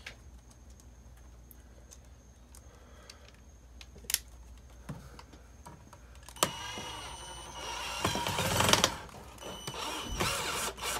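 Cordless drill driving a screw into a window air conditioner's mounting, the motor whirring in a few short runs starting about six seconds in. A single sharp click comes about four seconds in.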